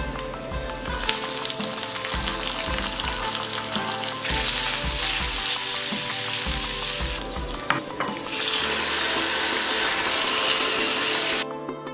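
Hot coconut oil sizzling and spluttering in a cast-iron kadai as green chillies, ginger and curry leaves fry in a mustard-seed and dal tempering, stirred with a wooden spatula; the sizzle grows louder about four seconds in. Later beaten curd is poured in over the tempering, and the sizzling stops abruptly just before the end, over soft background music.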